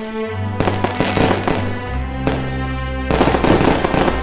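Fireworks bursting and crackling in quick, dense clusters over background music with held notes and a steady bass line. The bangs thicken about half a second in and again near the end.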